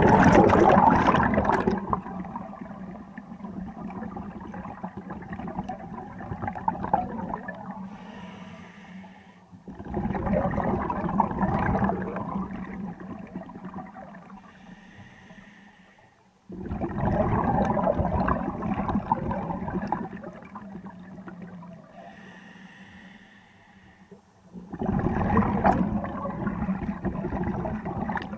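Scuba diver breathing through a regulator underwater: four loud gurgling bursts of exhaled bubbles, about every seven to eight seconds, each fading away, with a softer hiss between them as the diver inhales.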